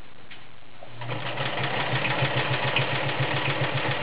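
Kenmore Model 1941 sewing machine sewing through six layers of denim with a size 16 needle. It starts about a second in and runs at a steady, fast rhythm of needle strokes, then stops near the end.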